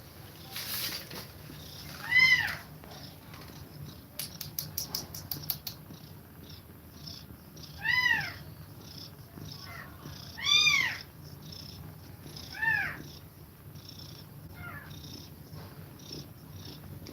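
Newborn kittens mewing while they nurse: about four loud, high-pitched calls that rise and fall, plus a few fainter ones, over steady low purring. Quick, even short breaths come about two a second from the nursing mother cat, which is breathing fast.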